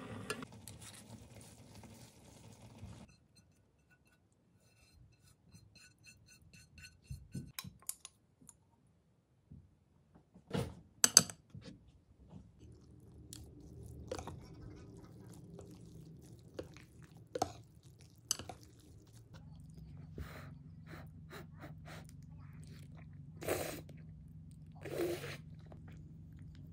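Eating mung bean glass noodles: chewing, with a metal spoon and wooden chopsticks clicking and scraping against a ceramic bowl. In the first three seconds, a pot of water bubbling as the noodles are stirred with chopsticks.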